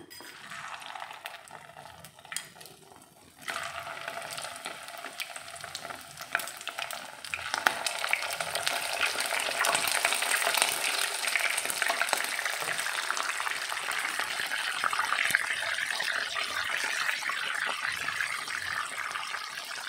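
Egg-coated pressure-cooked milkfish (bandeng presto) sizzling and crackling as it deep-fries in hot oil. The sizzle starts suddenly about three and a half seconds in, as the fish goes into the oil, and grows louder a few seconds later.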